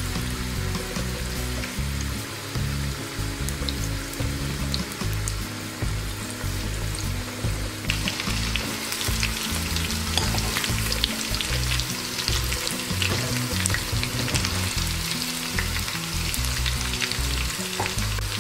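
Marinated chicken pieces deep-frying in hot oil in a pan, sizzling and crackling steadily, while a spatula turns them. The crackling gets louder and busier about eight seconds in, as the pieces fry to a red crisp.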